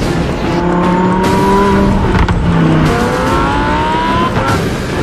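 Lamborghini Huracán Performante's naturally aspirated V10 accelerating hard, the pitch climbing, dropping at an upshift about three seconds in, then climbing again.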